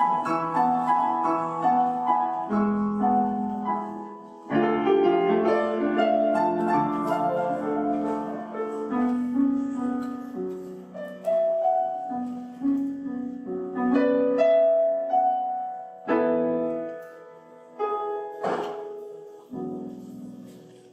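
Piano playing a slow passage of held notes and chords.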